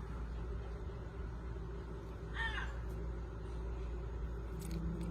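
Green-winged macaw vocalizing softly: one short call about halfway through, then near the end a low hum that slowly rises in pitch.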